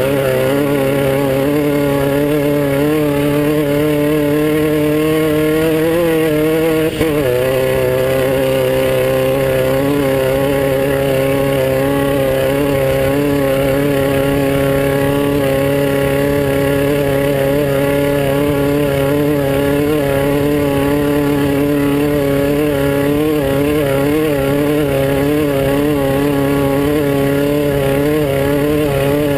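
The air-cooled VW engine of a Class 9 off-road race buggy running hard at near-steady high revs, its note wavering a little. About seven seconds in it briefly dips, then settles back to a slightly lower steady pitch.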